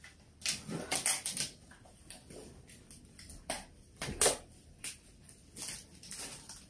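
Aluminium beer cans being worked loose from their plastic pack: an irregular string of sharp clicks, knocks and rustles, the loudest a little past four seconds in.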